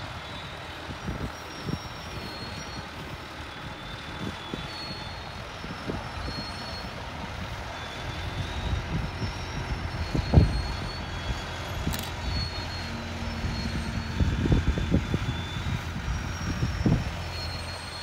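Aircraft tow tractor's engine running steadily as it pulls a Boeing 737-800 slowly along the apron, with irregular low thumps and faint short high chirps over the top.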